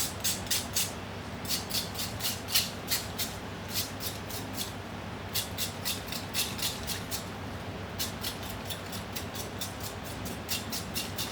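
Charcoal grill fire crackling: irregular sharp pops and clicks in quick clusters, over a steady low hum.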